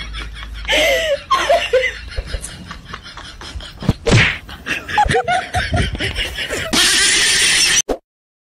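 People laughing and exclaiming in short bursts, cutting off suddenly near the end.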